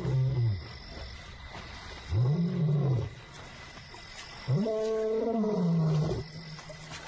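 Young male lion calling: three moaning roars, each rising then falling in pitch, the third the longest. It is a lone lion's contact call to a missing companion.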